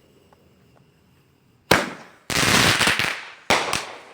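Consumer fireworks going off: one sharp bang, then about a second of loud, dense, rapid crackling, then two quick bangs close together.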